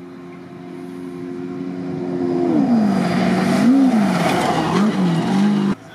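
Off-road race buggy's engine approaching at speed over a dirt road, growing steadily louder. About halfway through the pitch drops, then rises and falls twice, with a loud hiss of tyres and flung dirt as it passes close. The sound cuts off suddenly near the end.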